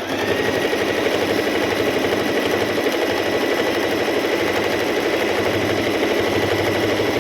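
Singer M3505 sewing machine running steadily at speed, sewing a close zigzag (stitch length set to 0.5): a rapid, even needle clatter over a steady high whine.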